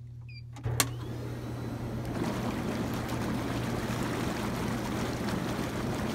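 Inflatable hot tub's bubble jets switching on: a click and a louder motor hum about a second in, then bubbling water that builds over a couple of seconds and holds steady.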